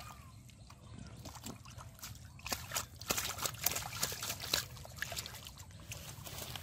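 Splashing and sloshing in shallow muddy water as a catfish is grabbed by hand, irregular splashes coming thicker from about two and a half seconds in.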